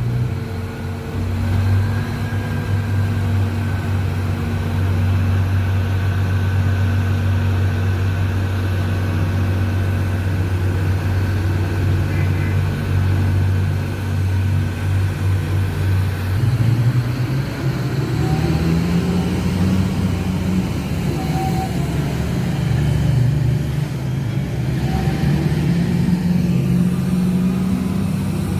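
Komatsu HD785 rigid haul truck's V12 diesel engine running close by with a steady low hum. A bit past halfway its pitch steps up and then rises and falls as the engine is revved higher.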